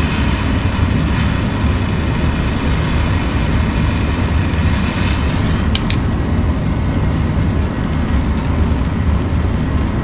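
Handheld gas torch flame burning steadily as it heats a copper pipe fitting for soldering: a constant noise with a low rumble. Two sharp clicks come close together about six seconds in.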